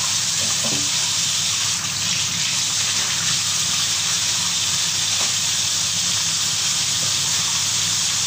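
Kitchen faucet running steadily, its stream splashing over a black chicken being rinsed by hand in the sink.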